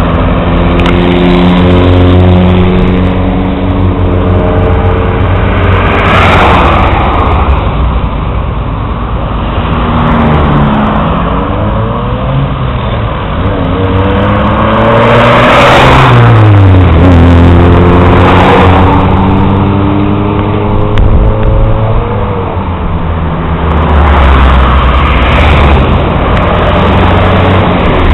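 Highway traffic passing close by: car and truck engines running and accelerating, their pitch rising and falling, with several vehicles rushing loudly past.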